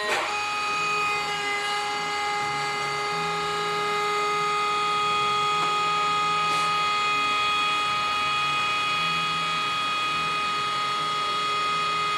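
Jig borer's machine drive running with a steady whine of several tones. With a click at the start the pitches shift and then hold, and a knock comes at the end.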